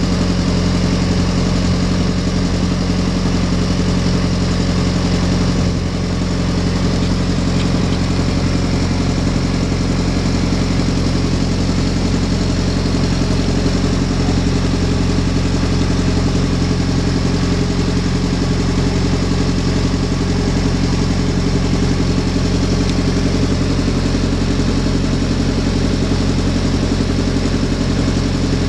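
A river slowboat's engine running steadily as the boat moves along, a constant hum with a slight dip in level about six seconds in.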